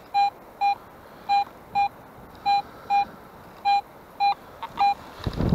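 Pulse-induction metal detector giving short, identical beeps, about nine of them, mostly in pairs, as the coil is swept back and forth over a buried metal target. Near the end, a louder rustling noise starts.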